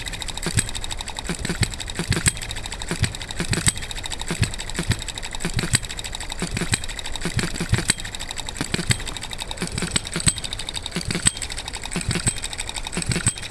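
Miniature RETROL B01 'Ball Top' 3.6 cc single-cylinder four-stroke hit-and-miss petrol engine running: a fast, steady ticking of the mechanism with louder firing pops at irregular gaps of about a second, as its governor lets it fire only on some strokes. It is still cold and running a little rich while its mixture is adjusted.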